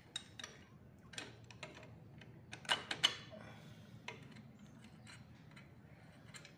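Light, irregular metal clicks and clinks of hands and tools on a U-bolt and its nuts, clamping a leaf spring to a rear axle. There is a quick cluster of louder clinks about three seconds in.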